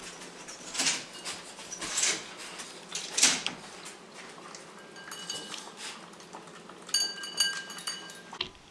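A small dog sniffing hard at food bowls, three breathy sniffs about a second apart, then eating whipped cream from a ceramic bowl that clinks and rattles on the tile floor from about five seconds in.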